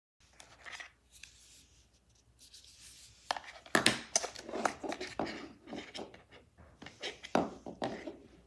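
Handling noise: irregular rubbing and sharp clicks of small objects being moved and set down, quiet at first and louder knocks in the second half.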